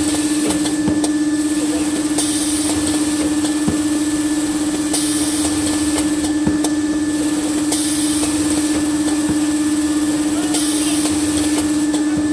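Automatic band saw maxi roll paper cutting machine running, with a steady loud hum and a fainter whine above it. A high hiss comes and goes every two to three seconds as the blade cuts through the paper log, and there are scattered light clicks.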